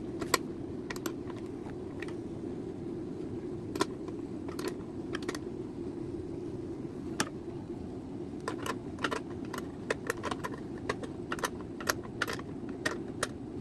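Small sharp metallic clicks and clinks from a 10 mm ring spanner being fitted and turned on the bolts of a motorcycle's plastic air-filter box. The clicks are irregular and come more often in the second half, over a steady low hum.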